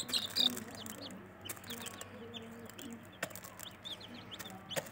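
Aseel hen clucking softly in low notes while her chicks peep over and over in short, high, falling cheeps. A few sharp taps come from the hen pecking grain in a plastic tub.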